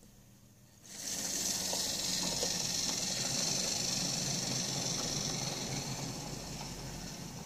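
Mainline OO-gauge Dean Goods 0-6-0 model locomotive running on its track. The steady hiss of the motor and the rumble of the wheels on the rails start suddenly about a second in and ease off near the end.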